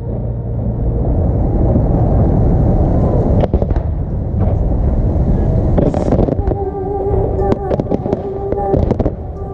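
Aerial fireworks going off continuously: a dense low rumble of shell bursts with many sharp cracks. Music plays over loudspeakers under the bangs and comes through more clearly in the second half.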